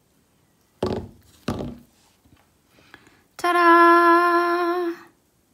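Two thumps on the work table about a second in, then a woman sings "Ta-da!" on one long held note lasting about a second and a half.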